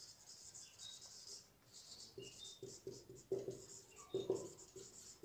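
Whiteboard marker writing on a whiteboard: faint scratchy strokes with a few brief high squeaks.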